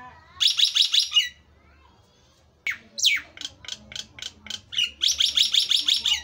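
Caged common myna (jalak nias) calling loudly in bursts of rapid, repeated harsh notes: a short dense burst about half a second in, a falling note followed by a run of spaced notes from the middle, and another dense burst near the end.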